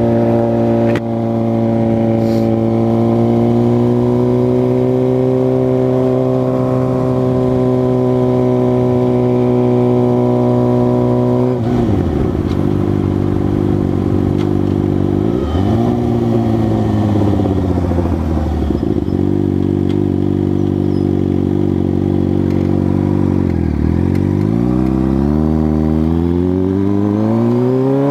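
2006 Suzuki GSX-R600's inline-four engine under way, holding steady revs for about ten seconds. The revs then fall off in several steps with short jumps between, as when downshifting to slow, and climb again over the last few seconds as it accelerates.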